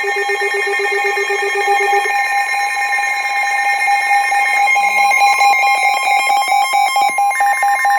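Weather radio warning alarm for a severe thunderstorm warning: several electronic tones sounding at once, a steady high tone under fast-pulsing beeps at two pitches. The lowest pulsing beep stops about two seconds in while the rest carry on.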